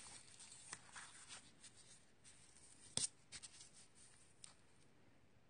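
Faint rustling as paper and a clear acrylic stamp block are handled on a craft table, with one sharp click about three seconds in.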